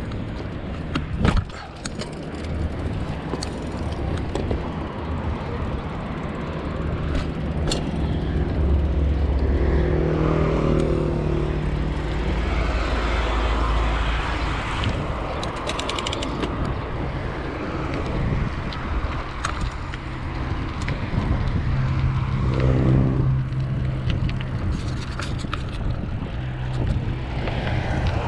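Street traffic heard from a moving bicycle, with a steady low rumble of wind on a chest-mounted action camera's microphone and scattered small clicks and rattles. A vehicle's engine hum swells and fades about ten seconds in, and again a little past twenty seconds.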